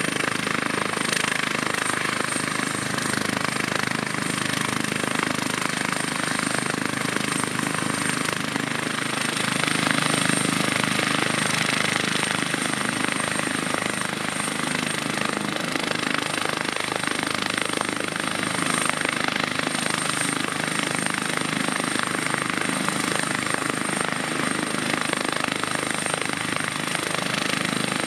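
Airbus H145 rescue helicopter running on the ground, its twin turboshaft engines and rotors turning steadily, with a steady high turbine whine over the rotor noise.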